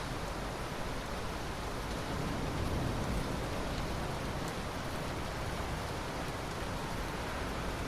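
Steady rainfall, an even hiss of rain falling on surfaces.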